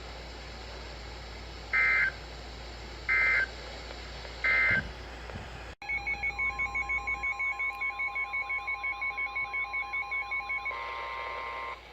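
Emergency Alert System weather-radio tones: three short, screechy two-tone data bursts about a second and a half apart, the end-of-message code closing a warning. After a sudden cut, a rapidly pulsing, warbling alert alarm (about six pulses a second) over a steady tone near 1050 Hz, the weather-radio warning tone, for about five seconds, ending in a short held chord of tones.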